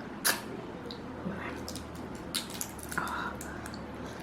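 Close-up eating sounds: wet chewing and biting on spicy prawns, with a few short sharp clicks, the loudest about a quarter second in.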